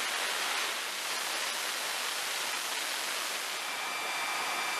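Pratt & Whitney F119 jet engine running on a hush-house test stand: a steady rushing noise. About three and a half seconds in, a steady high whine joins it.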